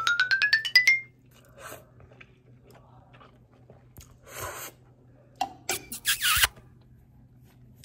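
Noodle eating close to the microphone: a rising, rapidly pulsing whistle-like effect sound ends about a second in, then quiet chewing, a short slurp about four and a half seconds in, and a louder slurp as a single instant noodle is sucked in around six seconds in.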